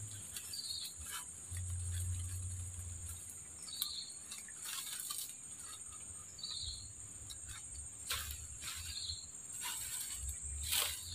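Steady high-pitched buzz of swamp insects, with a short chirp repeating four times about two and a half seconds apart and scattered soft clicks and rustles.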